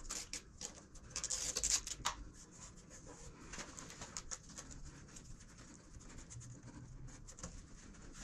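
Faint rustling, scratching and small clicks of hands handling an LED light strip and its cable against a motorcycle's rear fender bar, busiest about one to two seconds in.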